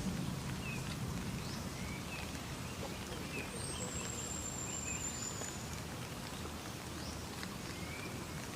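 Steady rain falling, with scattered short chirps from small animals and one thin, high, held whine about halfway through.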